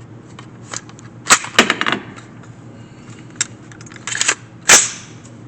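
Gunshots, some close and very loud, others fainter, in an irregular series: a loud shot about a second in, a quick cluster of lighter cracks, a few scattered ones, and another loud shot near the end.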